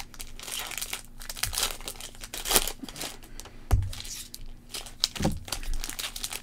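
Foil trading-card packs crinkling in the hands and being torn open, with a couple of dull knocks about four and five seconds in.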